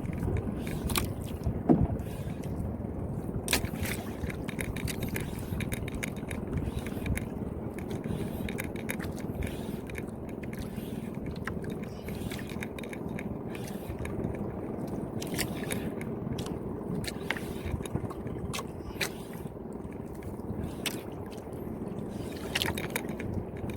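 Silver Rays 5000 spinning reel being cranked on a jigging retrieve: a steady low rumble with scattered irregular clicks.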